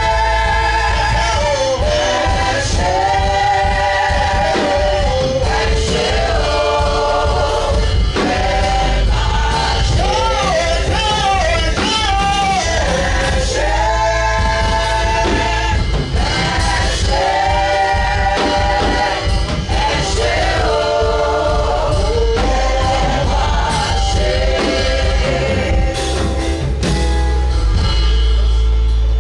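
Gospel worship music: sung phrases with long held, wavering notes and vocal runs over a band with a heavy, steady bass.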